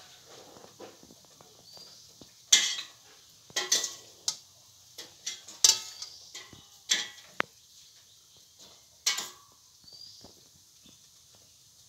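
Metal spatula scraping and clinking against a metal pan while stirring fried rice. The strokes are irregular, about one every second or so, the sharpest about two and a half seconds in.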